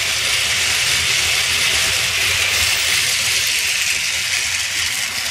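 Battery-powered Tomy Streamlining Thomas toy train running fast on plastic track while hauling a long load of coaches: a steady, noisy whirr of its motor, gears and wheels.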